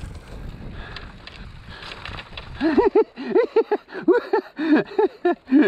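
Mountain bike rolling over a wet trail with a faint rushing noise. About halfway in, a quick run of short pitched squeals starts, each rising and falling, about four or five a second.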